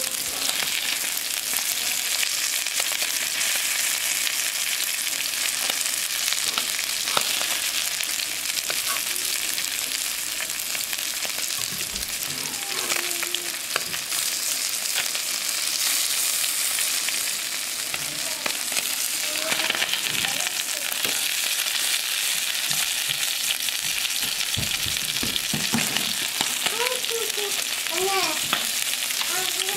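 Fresh anchovies sizzling in hot oil in a frying pan, a steady hissing fry. Metal tongs click now and then against the pan as the fish are turned.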